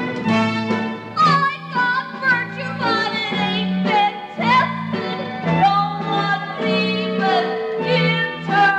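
Musical theatre number: female voices singing high, gliding and held lines over a theatre orchestra accompaniment.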